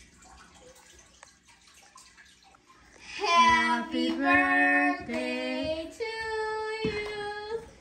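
Quiet room sound, then about three seconds in voices start singing a few long held notes that step in pitch, the last one held longest.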